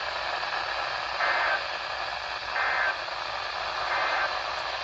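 NOAA Weather Radio broadcast over a steady static hiss, with three short buzzing digital data bursts about a second and a half apart: the SAME end-of-message code that closes an emergency alert.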